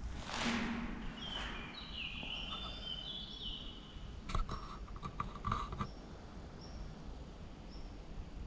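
Scuffs and scrapes of someone moving over rough concrete, with a cluster of sharp taps and scrapes about four to six seconds in. Small birds chirp high and faintly, with a quick run of whistled notes early on and single short chirps repeating near the end.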